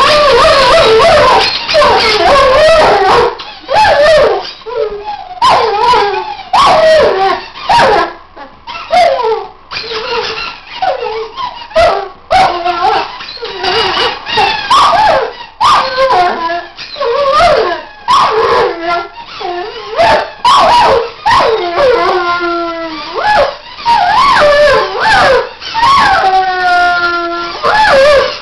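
Weimaraner howling and whining in a long run of high, wavering cries that slide up and down in pitch. Each cry breaks off after a second or so before the next begins.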